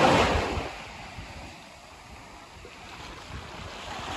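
Small waves washing up on a sandy beach. A surge of surf at the start fades over about a second, and another builds near the end.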